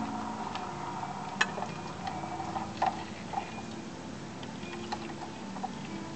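Wooden spoon stirring rice and onions in a frying pan, giving irregular light clicks and knocks against the pan over a steady low hum.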